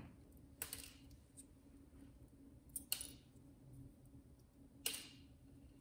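Three short, sharp scraping clicks about two seconds apart, with faint ticks between them: small camera parts and screws being handled and worked loose during a teardown.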